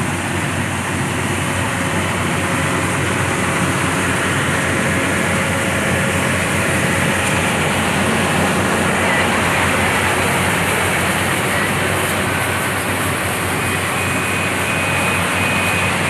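Rice combine harvester running steadily: a constant engine hum under a dense mechanical noise.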